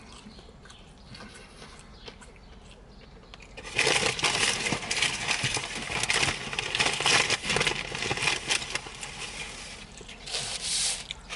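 Crackling, crinkling noise of a fried chicken sandwich being handled and eaten, made of many small crisp clicks; it starts suddenly about four seconds in and runs for about six seconds before easing off.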